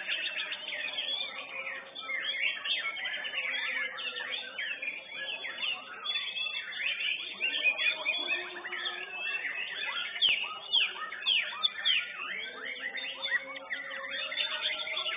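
White-rumped shama (murai batu) song in a contest: a dense, unbroken run of fast whistled notes sweeping up and down in pitch.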